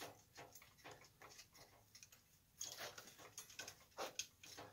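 Faint, irregular ticks and short scrapes of lamp wire being pushed and pulled through a metal chandelier arm by hand, the wire dragging against the arm's rough inside.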